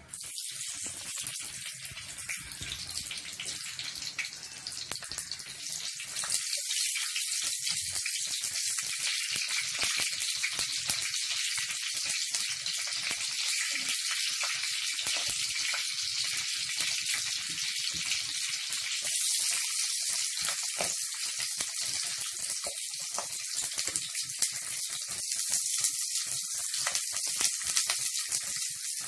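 Green chillies sizzling and crackling in hot oil in a clay pot, the sizzle getting louder about six seconds in.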